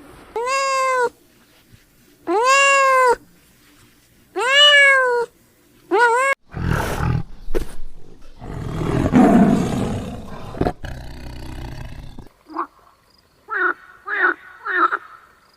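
Animal calls: three long cries that rise and fall in pitch, with a shorter fourth. Then a rough, noisy roar lasting several seconds, and near the end a run of short, quick calls.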